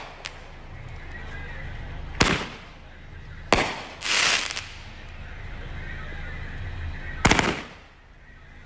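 Consumer fireworks going off: a few sharp bangs a second or more apart, a longer half-second burst about four seconds in, and a quick double bang near the end.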